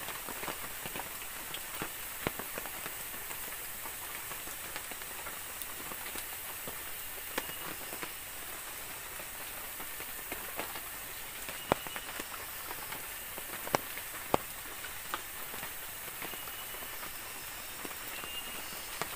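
Steady rain falling on wet forest ground, with scattered sharp ticks and pops, a few louder ones past the middle.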